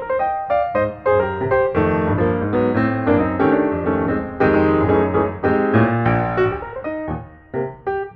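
Background piano music: a keyboard playing a quick run of notes and chords, thinning out briefly near the end.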